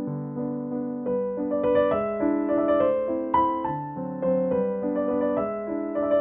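Background piano music: a melody of single notes over chords, each note struck and then fading.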